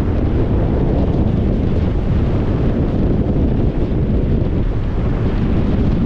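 Strong wind buffeting the microphone: a loud, steady low rumble.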